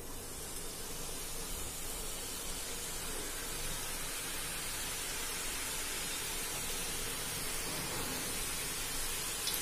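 Besan (gram-flour) sev strands deep-frying in very hot oil in a kadhai: a steady hiss of sizzling oil that grows a little over the first couple of seconds as more dough goes in.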